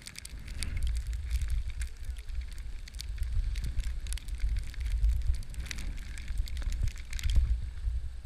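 Skis sliding and scraping over chopped-up packed snow, a steady crackling hiss with many small ticks, under gusty wind rumble on the microphone from the skier's speed.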